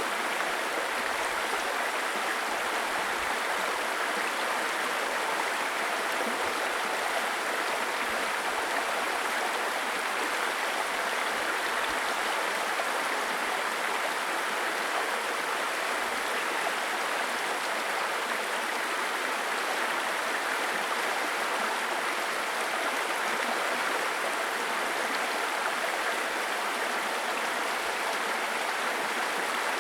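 A babbling brook: shallow stream water running and gurgling steadily over stones, an even rushing with no breaks.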